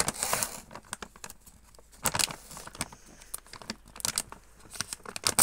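Plastic dry-cat-food bag crinkling and rustling in irregular bursts as hands pull and tear at it to get it open, loudest about two seconds in and near the end.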